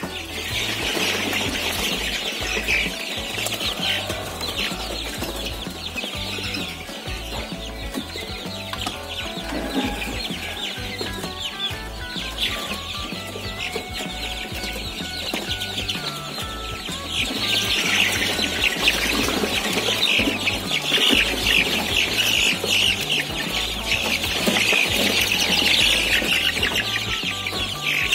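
A flock of 23-day-old cockerel chicks peeping and cheeping continuously in a dense chorus, louder in the last third.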